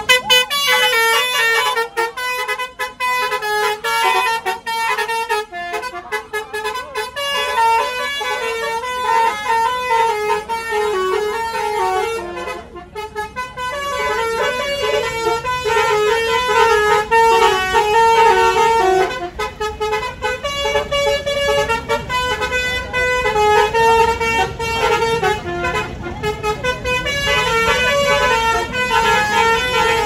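Bus telolet horn, a multi-tone musical air horn, playing a quick stepping melody over and over, with a brief break about halfway through.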